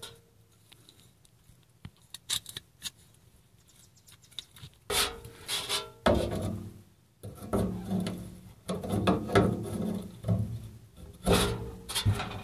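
Channel-lock pliers twisting a corroded brass end cap off a swamp-cooler float valve. A few scattered clicks, then from about five seconds in, repeated bouts of metallic scraping and grating as the stuck cap is worked loose.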